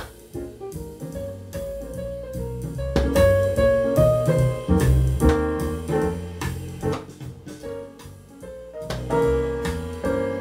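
Music playing from an MCS 3233 stereo receiver through loudspeakers, turning clearly louder about three seconds in as the tone defeat switch is flipped. That switch should not change the volume, so the jump points to a fault in the receiver's tone defeat circuit.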